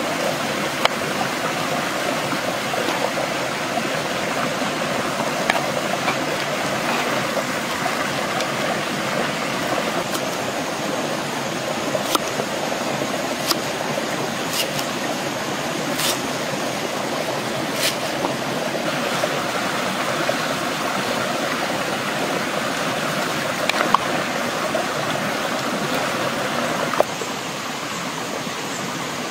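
Steady rushing of a shallow stream, with a few sharp knife chops on a wooden cutting board in the middle.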